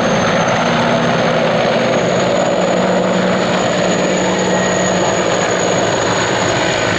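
Mil Mi-24V Hind E attack helicopter flying a close pass: the steady, loud noise of its main rotor and twin turboshaft engines, with a high turbine whine that rises slightly about two seconds in.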